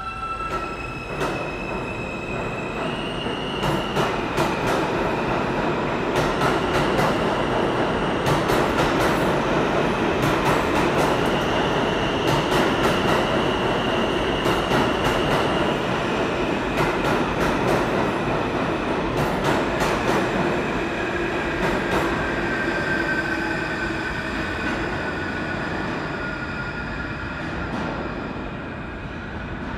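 R160 subway train pulling out of the station: its motors give a whine that steps up in pitch over the first few seconds, then the wheels clatter over the rail joints in a fast run of clicks as the cars pass. The sound fades away over the last several seconds.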